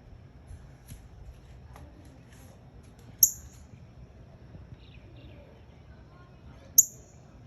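Bird chirping: two sharp, very high-pitched chirps about three and a half seconds apart, with fainter small chirps in between.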